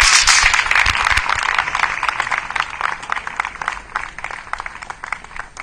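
Crowd applauding, loudest at the start and dying away gradually.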